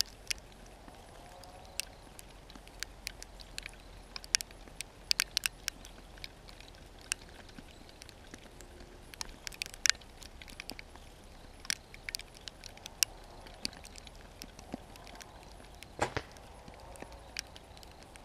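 Irregular sharp clicks and ticks, a few a second at most, over a faint steady hiss.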